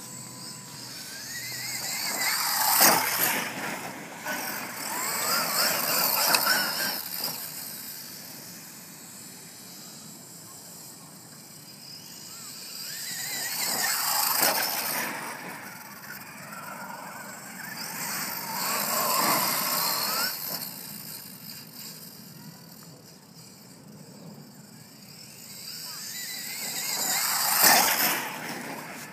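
Traxxas E-Revo brushless RC monster truck speeding past several times, its electric motor whining up and down, with its tyres crunching over gravel. The sound swells and fades about five times as it comes close and pulls away.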